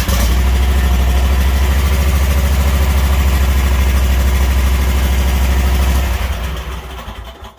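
Ferris Z2 stand-on mower's engine running steadily just after starting on its newly replaced start switch. About six seconds in it is shut off and winds down to a stop.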